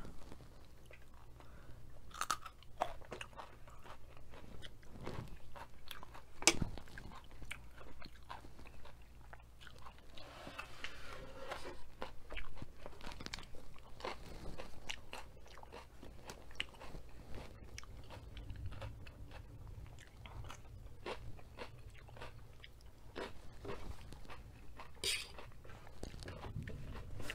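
A person chewing and crunching crisp food close to the microphone: irregular sharp crunches with quieter chewing between, from nachos and raw vegetables such as baby carrots. A faint steady low hum sits underneath.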